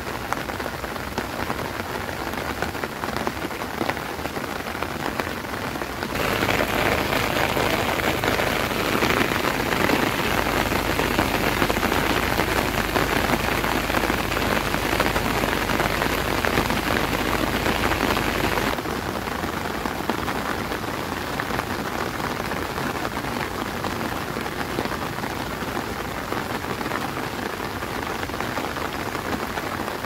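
Steady rain falling, an even wash of drops with no other sound standing out. It grows louder and fuller about six seconds in, then drops back to its earlier level a little past the middle.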